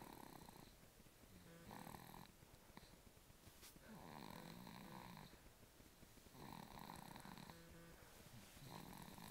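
A sleeping baby snoring faintly, one snore about every two seconds.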